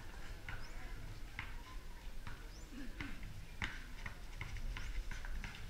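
Basketball bouncing on a concrete court during dribbling: sharp, irregular knocks that come quicker in the second half, over a low hum of crowd noise.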